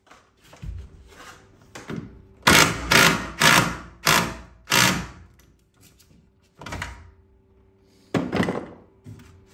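DeWalt cordless drill driving a 3-inch self-tapping screw through a 2x4 into a steel stud, in repeated short bursts: a few light ones, then about five loud ones in quick succession in the middle, and a couple more near the end.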